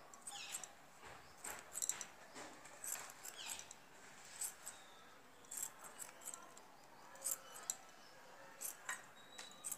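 Steel scissors snipping through wool yarn, trimming a pompom: a dozen or so short, faint snips at an irregular pace.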